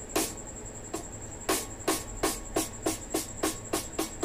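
A quickening series of about a dozen sharp knocks, each with a short falling tail, sparse at first and then about three a second, over a faint steady high-pitched whine.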